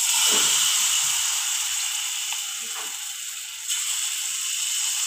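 Potato-and-flour batter sizzling in hot oil in a frying pan as it is spooned in. The sizzle eases a little midway, then picks up again near the end.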